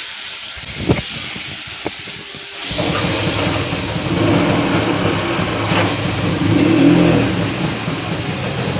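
Small marinated fish frying in hot mustard oil with a cumin-seed tempering. A steady sizzle is broken by two sharp knocks against the pan, then about three seconds in the sizzle jumps much louder as the fish go into the oil, and it keeps frying loudly.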